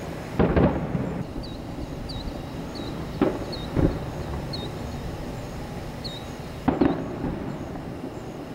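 Aerial firework shells bursting with echoing bangs: one about half a second in, two close together around three to four seconds in, and another a couple of seconds before the end, over a steady low outdoor rumble.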